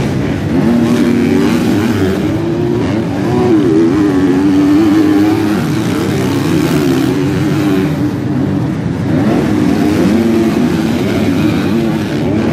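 Several motocross bike engines revving hard during a race, their pitch rising and falling with throttle and gear changes as the bikes overlap.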